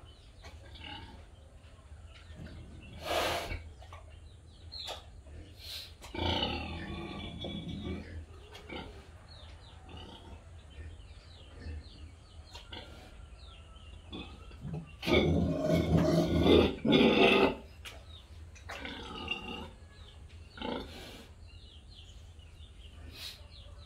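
A sow grunting during artificial insemination. The grunts come in a few short runs, the loudest about fifteen to seventeen seconds in, over a steady low hum.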